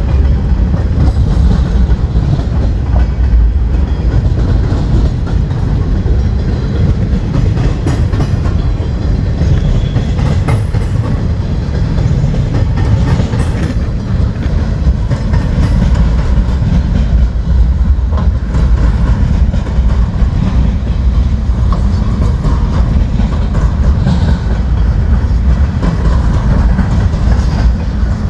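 Freight train of double-stack container cars rolling past at steady speed: a continuous low rumble of the cars on the rails, with occasional wheel clacks.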